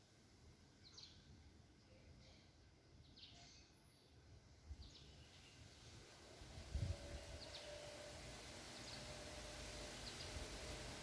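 Faint, scattered bird chirps: short high notes every second or two over a low hiss. A brief low thump comes about seven seconds in, after which a faint steady hum sets in.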